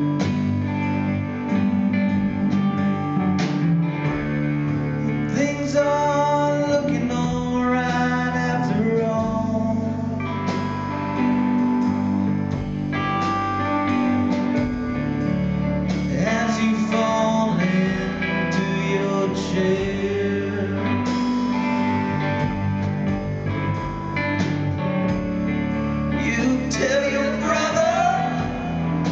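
Rock band playing live: electric guitar, keyboard and drums, with a man singing over them.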